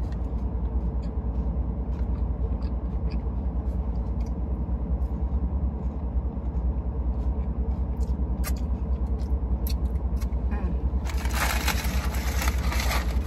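Steady low hum inside a stationary car's cabin, with a few faint clicks. Near the end comes a burst of rustling.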